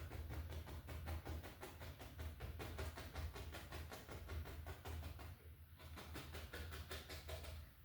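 Oil-paint brush tapping rapidly against a canvas, a fast even run of soft taps that pauses briefly about five and a half seconds in, over a steady low hum.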